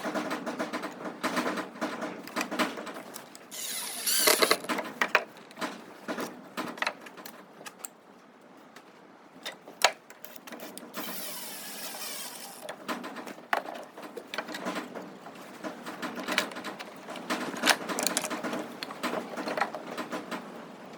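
Workshop work noises: a string of knocks, taps and clatter from handling wood and tools, with two short bursts of a small power tool running, a second or two each.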